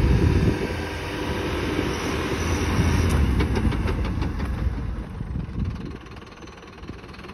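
Mercedes Vario 818 expedition truck's diesel engine labouring hard as the truck tries to climb a steep slope of loose scree, with stones clattering under spinning wheels. The engine eases off a little after about five seconds. The truck cannot get up: too much loose rock, too soft and too steep.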